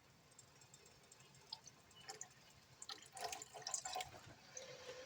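Soy sauce poured from a bottle into a pan of onions: faint drips and small splashes with a few light clicks, busiest about three seconds in.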